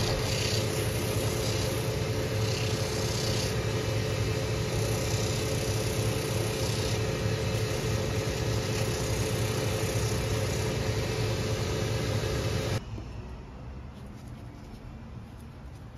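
Shoe finishing machine running with a steady motor hum while a boot's sole edge is sanded against its spinning wheel; the sound cuts off abruptly about thirteen seconds in, leaving only faint background noise.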